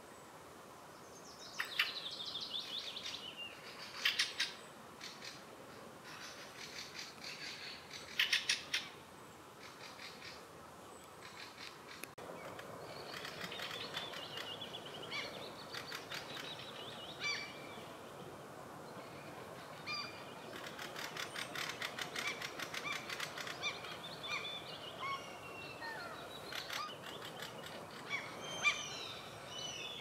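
Wild songbirds singing: repeated short whistled phrases and quick trills, with a few short bursts of rapid, sharp chattering calls in the first half.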